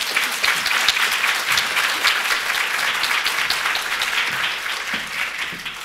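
Audience applauding: dense, loud clapping from many hands, fading out near the end.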